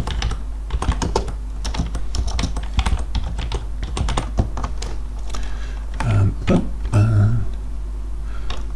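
Typing on a computer keyboard: an irregular run of quick key clicks as a line of code is entered.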